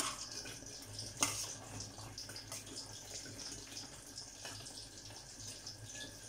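A metal utensil stirring thick butternut squash and lentil soup in a stainless steel saucepan: soft sloshing of liquid, with a sharp clink of metal on the pan about a second in and a few fainter taps later.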